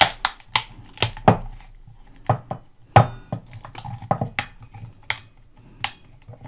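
Hardened, perished rubber turntable mat cracking and snapping as it is broken off the platter by hand: about a dozen sharp, irregular snaps. The rubber has gone so hard with age that it cracks instead of stretching.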